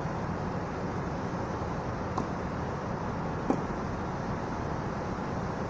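Two sharp tennis-ball impacts about a second and a half apart, the second louder, over a steady background hiss.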